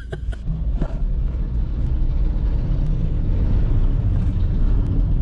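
Toyota Hilux driving on a dirt road: a steady low rumble of engine and tyres on gravel, building a little in the first second, with a few faint ticks.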